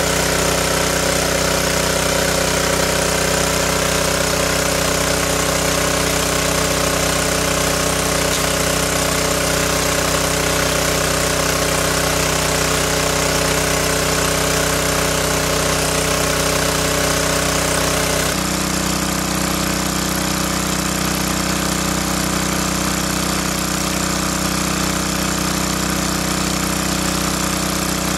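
Small engine-driven water pump running steadily, a continuous mechanical drone whose tone changes abruptly about eighteen seconds in.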